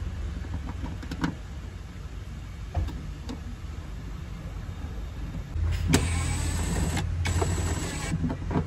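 A few light knocks from handling plastic trim. About six seconds in, a cordless drill-driver motor runs in two short bursts with a brief pause between them.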